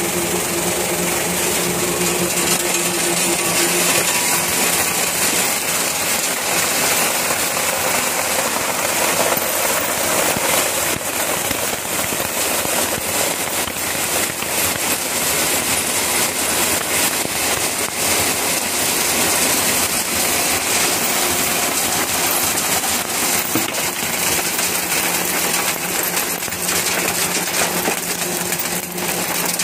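Glass-sorting machine running: a steady motor hum under a continuous dense clatter of broken glass pieces rattling across a vibrating feeder tray and pouring into plastic bins.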